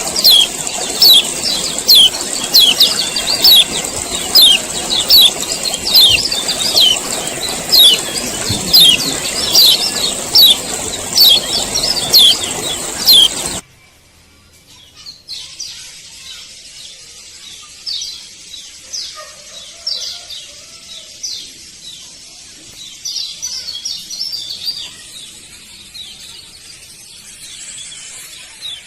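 Male kecial kuning (yellow white-eye) giving repeated "ciak ciak" calls: quick, falling high notes about two a second over a steady high hiss. About halfway through it cuts abruptly to a much quieter stretch of scattered softer chirps.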